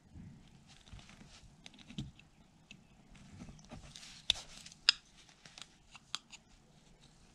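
Carving knife slicing basswood in short paring strokes: a run of small, crisp cuts and snaps, the sharpest two about four and five seconds in.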